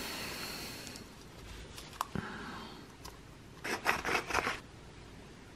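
Metal herb grinder being twisted by hand: a short run of dry rasping scrapes about three and a half seconds in, after a single click about two seconds in.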